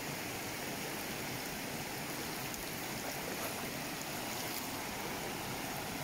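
Steady rush of a small, clear stream cascading over rocks in a little waterfall.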